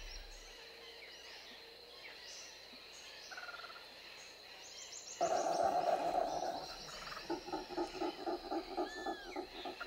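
Faint high chirps over quiet forest ambience, then about five seconds in brown howler monkeys begin calling: a held howl that breaks into rhythmic grunting pulses, about three a second.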